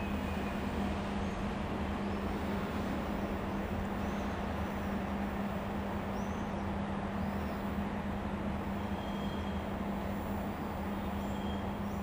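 An RFI diagnostic train led by an E402B electric locomotive rolls slowly through a station yard, giving a steady rumble with a constant low hum.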